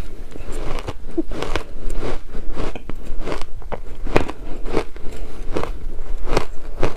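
Close-miked crunching of shaved ice being bitten and chewed, a quick run of crisp, crackly crunches about one or two a second.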